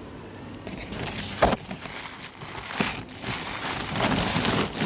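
Plastic packaging crinkling and rustling as it is handled, with sharp clicks about one and a half and about three seconds in.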